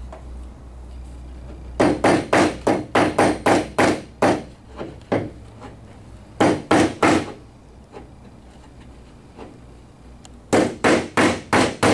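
Hammer tapping a 2-inch wooden dowel pin down through the table's top frame into the top of a leg, in quick runs of sharp taps, about four a second, with pauses between runs.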